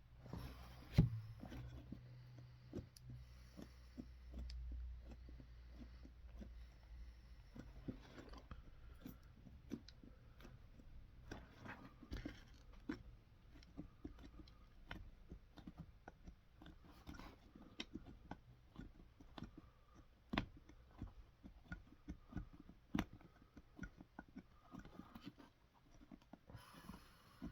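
Hand work on a boot in a cobbler's shop: a steady run of small clicks, crunches and scrapes, with one sharper knock about a second in.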